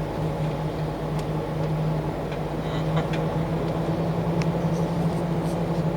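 A lorry's diesel engine running steadily, with a few faint clicks over it.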